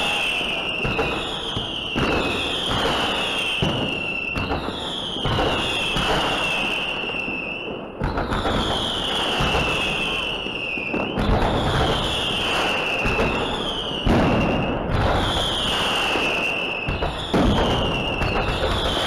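Fireworks display going off overhead: dense crackling with a sharp bang every few seconds, and a high whistling tone that falls in pitch, repeating about once a second.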